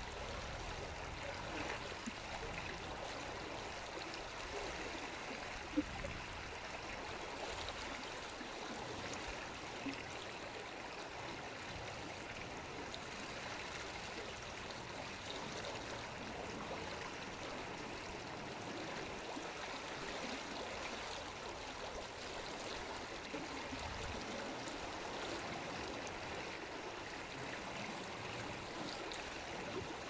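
Steady rush of flowing water, even and unbroken, with one brief click about six seconds in.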